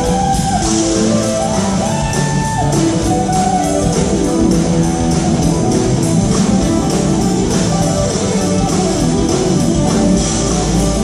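Live electric band playing: an electric guitar plays lead lines with held and bent notes over bass guitar and drums with cymbals.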